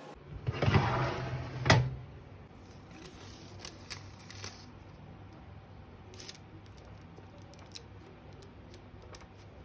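Household handling sounds: a short clattering rustle ending in a sharp knock in the first two seconds, then scattered light clicks and taps.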